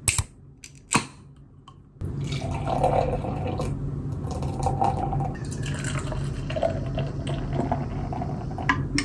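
Two sharp clicks about a second apart, then a drink being poured and splashing into a glass, with a steady low hum underneath.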